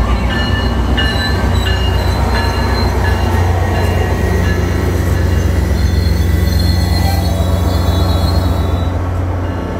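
SunRail commuter train, a diesel locomotive hauling bi-level passenger cars, rolling past on the far track: a steady low diesel drone under the rumble of the cars, with high-pitched wheel squeal coming and going.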